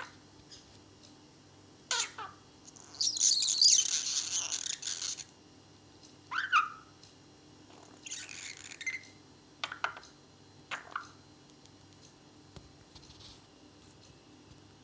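Pet budgerigar chattering: short high chirps, with a longer scratchy warble of chatter about three seconds in and another around eight seconds.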